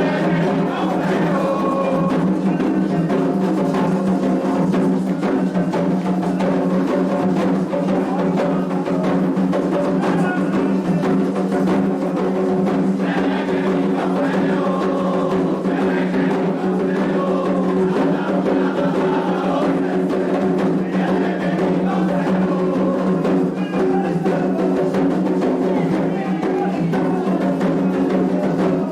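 Candomblé toque for Ossain: atabaque hand drums playing a continuous rhythm with a bell-like clacking percussion, and voices singing over it.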